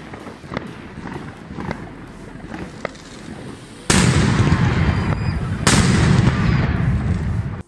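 Two Category F4 firecrackers exploding about two seconds apart, each a sudden heavy bang followed by a long echo. Before them there are a few faint ticks and pops.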